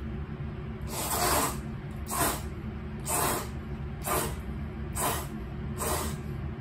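Udon noodles being slurped in six short slurps, about one a second. A steady low hum from a kitchen ventilation fan runs underneath.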